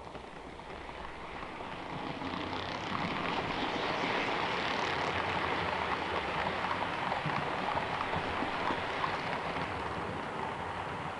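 Model freight train running on model railway track close by, wheels rolling over the rails and points with a rumble and small clicks. It swells over the first few seconds as the train passes and eases slightly near the end.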